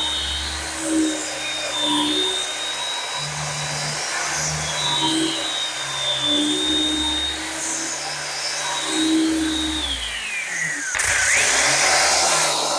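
Angle grinder fitted with a backing pad and a coarse 40-grit adhesive sanding disc, running with a steady high whine as it sands paint off a wooden tabletop. About ten seconds in, the whine drops in pitch as the motor slows. Near the end comes a louder, hissier stretch with the pitch rising again.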